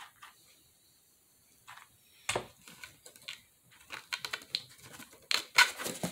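Scattered light taps, knocks and rustles of cardboard craft pieces being handled and pressed together by hand, with a single sharper knock about two seconds in and a busier run of taps and rustling near the end.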